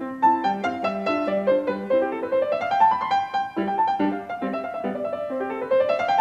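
Solo grand piano playing a classical piece, with quick rising runs about two seconds in and again near the end.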